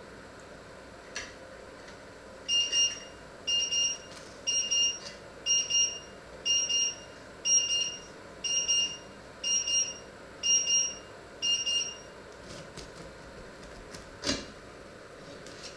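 Electronic alarm beeping: about ten short bursts of rapid high-pitched beeps, roughly one burst a second, that start a couple of seconds in and stop about three seconds before the end. A single sharp knock follows near the end.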